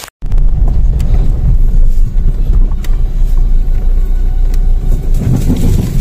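Low, steady engine and tyre rumble heard inside an SUV's cabin as it drives over a rough grassy track, with a few light knocks from the bumps. It starts abruptly just after the beginning.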